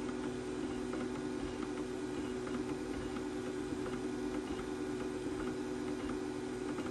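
Weedo ME40 3D printer running during a print: a steady hum with faint ticking.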